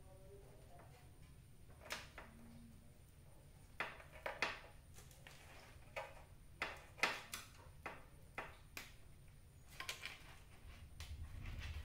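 Scattered light clicks and taps of wire connectors and plastic parts being handled at the neck of a CRT television picture tube, about a dozen in all, over a faint steady hum.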